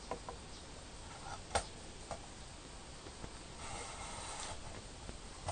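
Hands handling a small metal model engine car: a few light clicks and knocks, the loudest about one and a half seconds in, then a short rustling scrape near the middle.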